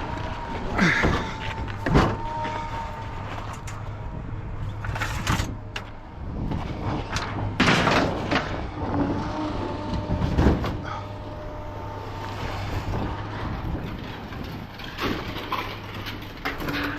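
Irregular metallic bangs and clanks, the loudest about two, eight and ten seconds in, over a steady low engine hum.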